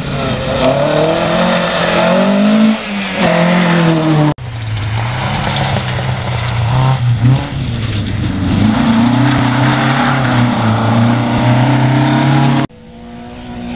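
Historic rally cars driven hard on a gravel stage, their engines revving and rising and falling in pitch through gear changes. The sound breaks off abruptly twice and starts again with a different car.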